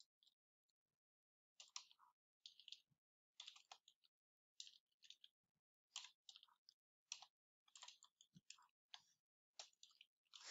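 Faint computer keyboard typing: irregular runs of quick key clicks, starting after a short pause about a second and a half in.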